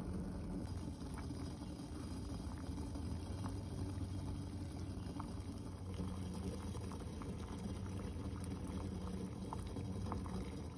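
Saucepan of water with lemongrass and pandan leaves boiling on a gas burner: scattered bubbling and small pops over a steady low hum.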